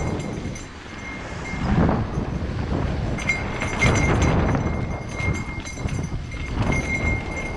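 Mountain bike descending a dirt trail, heard from a rider-mounted camera: a steady rumble of tyres over dirt and stones, with wind on the microphone and the bike rattling. About three to four seconds in, a few sharper knocks as the wheels cross wooden bridge planks. A thin high tone comes and goes.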